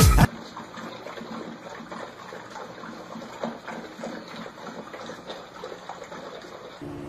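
A loud music track cuts off at the very start. Then several puppies are eating together from one dish, a quiet, steady run of wet lapping and smacking with many small ticks.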